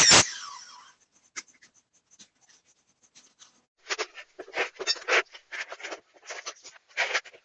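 A power tool shuts off and winds down with a falling pitch over about a second. After a pause, short irregular scraping or rubbing strokes follow from about four seconds in.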